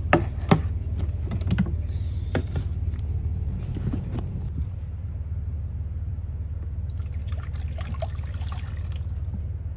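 A few sharp clicks and knocks of a dog bowl being handled, then water pouring into it for about two seconds near the end, over a steady low hum.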